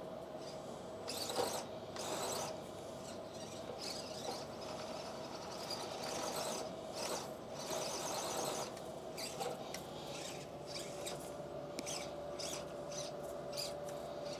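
Electric RC rock crawler's motor and gears whining steadily, with repeated scrabbling bursts as the tires slip and grip on rock while it strains at a climb.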